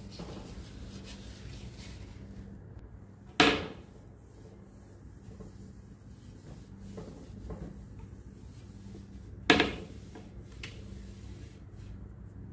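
Two sharp knocks, about six seconds apart, each fading out quickly, over a steady low hum.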